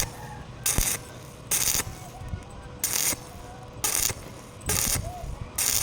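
Stick-welding arc crackling in short, evenly spaced bursts, about seven in all, as the arc is struck and broken in a stop-start rhythm while running a vertical pipe weld.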